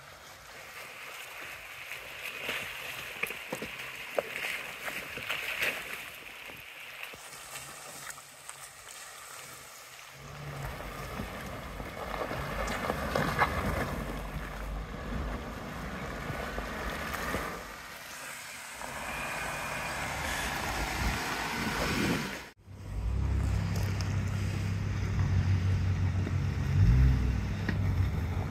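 Jeep Wrangler engine working as the Jeep drives through and out of a muddy ditch, its low drone building partway through, with wind hiss on the microphone. After an abrupt cut about 22 seconds in, a Jeep engine runs close by with a louder, steady low drone.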